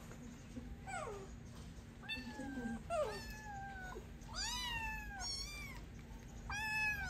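Tabby kitten meowing over and over: about seven short, high calls, several sliding down in pitch, the later ones longer.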